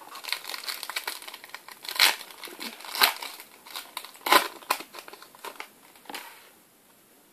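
Foil Match Attax trading-card packet being torn open and crinkled in the hands: a run of crackles with sharper snaps about two, three and four and a half seconds in, dying away near the end.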